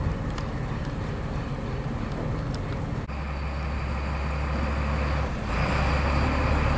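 Engine running steadily with a low hum. It turns abruptly louder and deeper about three seconds in, and louder again a couple of seconds later.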